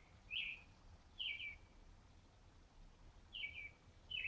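A bird calling over and over, faintly through a window: short, sharp chirped notes, some single and some in quick pairs or triplets, spaced about a second apart with a gap of about two seconds in the middle.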